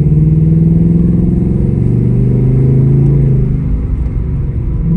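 Ford Mustang GT's 5.0 Coyote V8 revved up and held at a steady raised pitch for about three and a half seconds, then dropping back toward a lower rumble.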